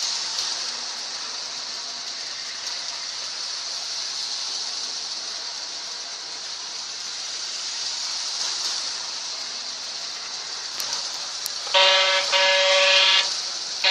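Lionel model diesel locomotive running on its track with a steady high hiss of motor and wheels. About twelve seconds in, its horn sounds in two short blasts.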